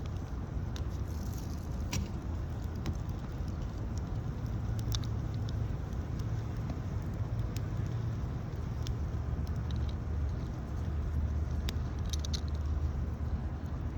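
Campfire wood crackling with scattered sharp pops and ticks over a steady low rumble.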